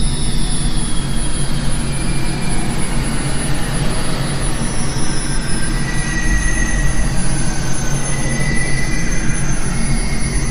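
Horror soundtrack drone: a loud, steady rumbling noise with faint high whistling tones that slowly drift up and down in pitch.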